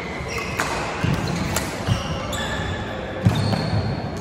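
Badminton rally: rackets striking a shuttlecock in sharp cracks, several in quick succession, with short squeaks of court shoes on the floor between hits. A heavier thump comes a little after three seconds.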